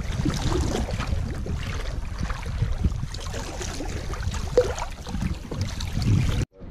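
Wind buffeting a microphone mounted low on a boat's side, with choppy river water slapping against the hull. The sound cuts off abruptly near the end.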